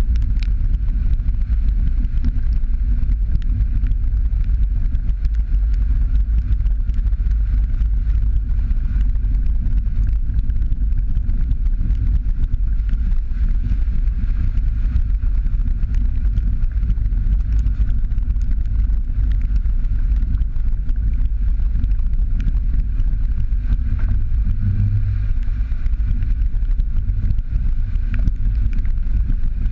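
Jeep Patriot driving along a wet dirt trail: a steady low rumble of engine and tyres.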